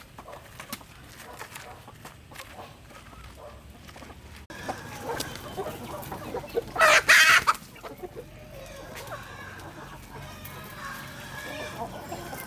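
Chickens clucking around a farmyard, with one loud rooster crow lasting under a second about seven seconds in.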